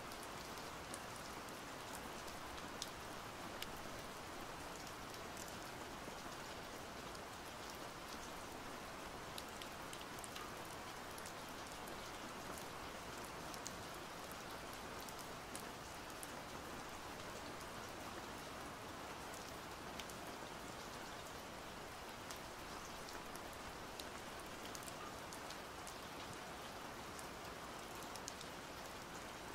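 Steady rain falling, an even hiss with scattered drops ticking.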